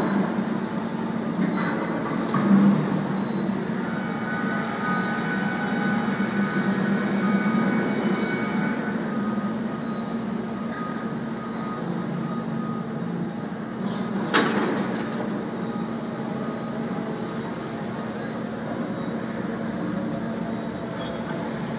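Driverless electric forklifts (AGVs) driving and manoeuvring: a steady hum with thin motor whines over it, a thump a few seconds in and a sharp metallic knock a little past halfway.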